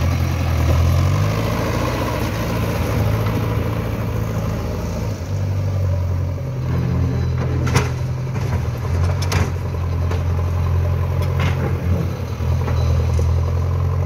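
JCB 3DX backhoe loader's diesel engine running under working load, its speed stepping up and down several times as the machine digs. A few sharp knocks come through in the second half.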